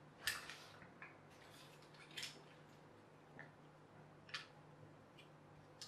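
Thin cardboard jigsaw pieces being picked up and set down on a cloth: a few faint, irregular clicks and taps, the loudest just after the start.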